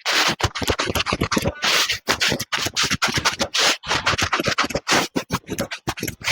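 Rapid, irregular scratching and scraping strokes, several a second, some drawn out longer.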